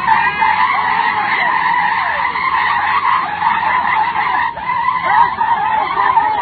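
Off-road vehicle's engine running hard and steady at high revs while it works through deep mud.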